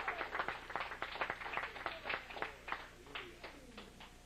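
Congregation applauding, many hands clapping irregularly and dying away over about three seconds, with a few voices mixed in.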